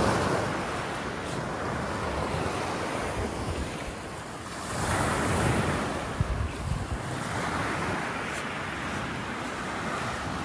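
Ocean surf washing onto a beach, with wind buffeting the microphone; a wave swells up about five seconds in.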